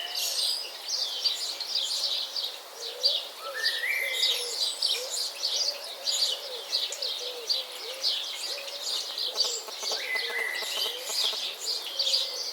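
Many birds chirping and twittering together in a dense, unbroken chorus of short high notes. A few rising whistled calls stand out about three and a half seconds in and again near ten seconds, over lower wavering notes in the middle.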